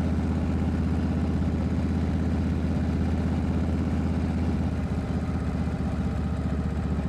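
A 1978 Harley-Davidson Shovelhead V-twin chopper engine runs under way at a steady, even beat. It gets slightly quieter about five seconds in.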